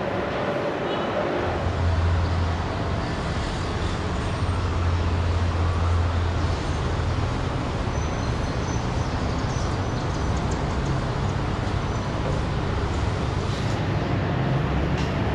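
Road traffic noise, with a heavy vehicle's low engine rumble passing from about a second and a half to six and a half seconds in, then a steadier traffic hum.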